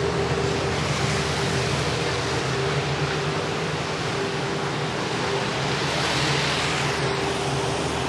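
Steady rushing background noise with a constant low hum underneath, unchanging throughout.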